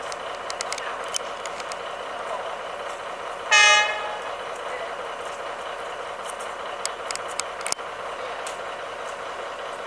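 Diesel locomotive horn giving one short, loud toot about three and a half seconds in, over the steady running noise of a train, with scattered sharp clicks.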